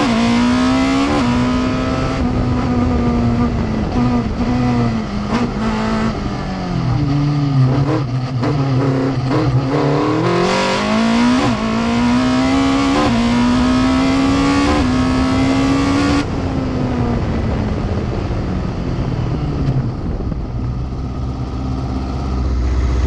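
Open-cockpit racing car's engine heard from onboard, revving hard through the gears: the note climbs and drops sharply at each quick upshift, sinks low through a slower stretch in the middle, then climbs through the gears again. About two-thirds of the way in the driver lifts off and the engine note falls away as the car slows.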